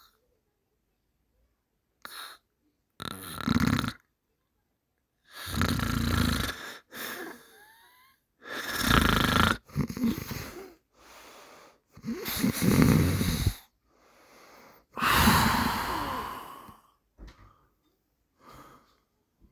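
Heavy snoring: about five loud, deep snores on the in-breath, roughly every three seconds, each followed by a softer out-breath. It thins out to a few faint breaths near the end.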